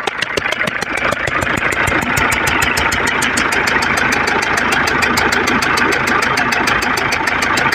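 Tata Harrier's 2.0-litre four-cylinder diesel idling with a rapid, even 'chak chak' ticking. The noise comes from compression leaking past the No.2 injector through a cut injector washer, which makes that cylinder misfire.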